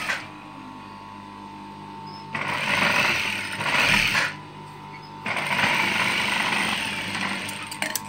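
Industrial lockstitch sewing machine stitching through thick fabric in two runs of about two seconds each, stopping between them. Near the end, a few light clicks as scissors trim the thread.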